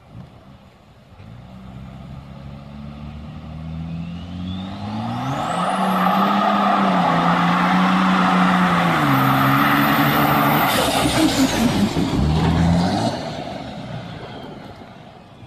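Pickup truck doing a burnout. Its engine revs climb over several seconds and then hold high while the tyres spin with a loud hiss and screech, and the engine drops away near the end.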